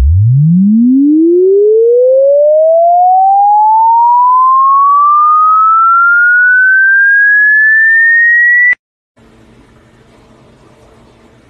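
A single pure electronic test tone sweeping steadily upward in pitch, from a deep hum to a high whistle, over about nine seconds, then cutting off suddenly. A faint steady hum follows.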